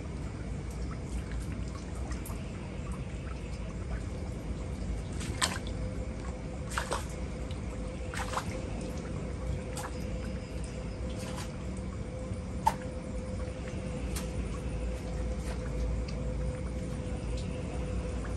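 Faint taps and clicks that sound like footsteps, coming singly about every one to one and a half seconds, over a steady low rumble and a constant faint hum.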